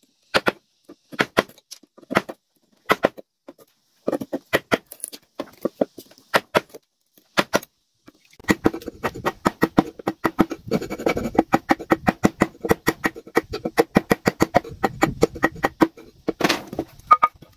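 Sharp knocks of a tool striking a wooden pole, about one or two a second at first, then from about halfway in a faster run of about four or five strokes a second with a low ringing note underneath.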